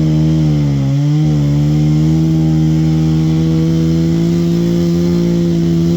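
Chainsaw running at high revs, holding a steady note with a brief dip in speed about a second in.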